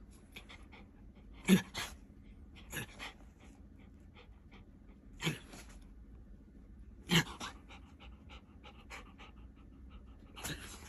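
A dog panting, with five short, louder sounds that drop in pitch, the loudest about a second and a half in and again about seven seconds in.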